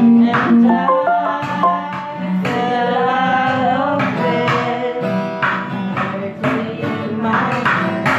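Singing with an acoustic guitar strummed along.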